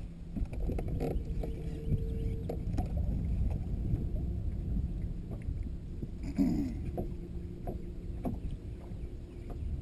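Water slapping against the hull of a bass boat, with wind on the microphone giving a steady low rumble, and scattered small clicks and knocks from the deck and fishing tackle.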